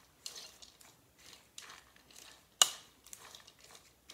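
Wooden spoon stirring shredded broccoli slaw and ranch dressing in a mixing bowl: a run of soft rustling strokes about two a second, with one sharp knock near the middle.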